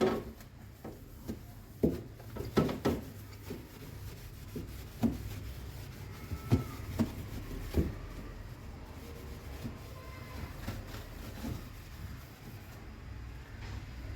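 Irregular knocks and clicks of fridge parts being handled and scrubbed during cleaning, more frequent in the first half, over a steady low hum.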